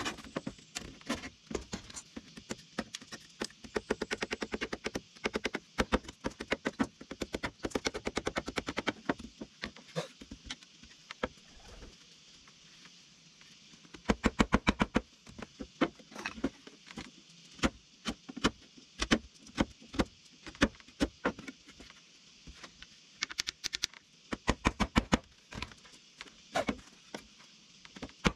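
Sharp knocks and taps from hand tools working wood, coming in quick runs of several strikes a second with short pauses between.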